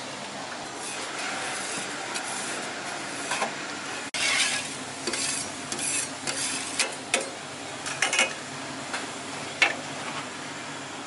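Metal scraper scraping across a hot flat steel teppanyaki griddle, with sizzling. After a steady hiss in the first four seconds come irregular sharp scrapes and clinks of metal on metal.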